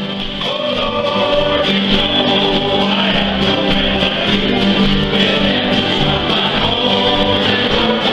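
Live gospel and country music: several men singing together over acoustic guitars, a mandolin and an accordion, playing steadily without a break.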